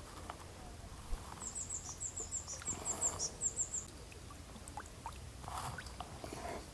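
A small bird singing a faint, rapid series of high, thin chirps, about five a second, starting about a second and a half in and lasting about two seconds, over faint clicks and rustles.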